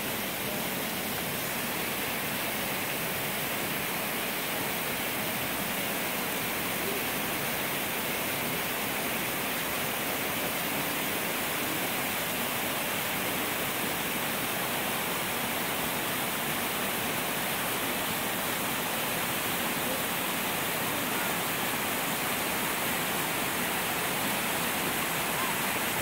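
A small waterfall pouring down a sloping bedrock slide in a creek: a steady, unbroken rush of water.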